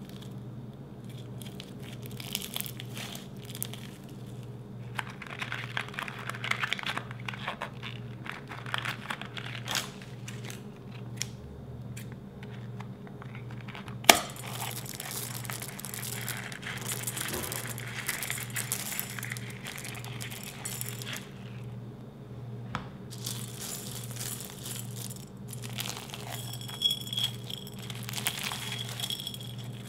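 Crunchy bead slime squeezed and kneaded by hand in a glass bowl, crackling and crinkling as the small plastic beads pop and shift. About halfway, a single sharp snap as scissors cut open a bead-filled balloon, followed by more crackling as loose plastic beads are worked into the slime against the glass.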